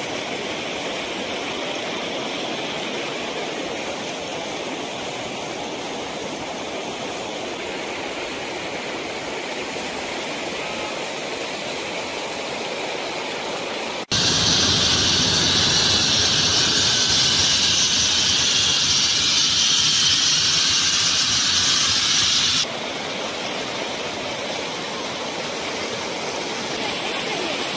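Muddy floodwater rushing and pouring in a steady noise. It jumps abruptly to a louder, hissier rush about halfway through and drops back to the earlier level about eight seconds later.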